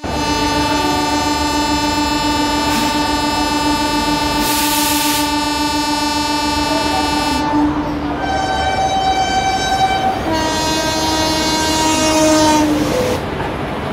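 Indian Railways electric locomotive's air horn sounding three long blasts as the train departs: a long chord, then a higher blast, then a lower one. A short hiss comes partway through, over the rumble of the train.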